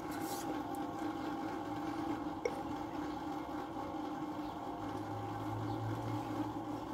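A cold drink being sipped through a plastic straw, over a steady background hum.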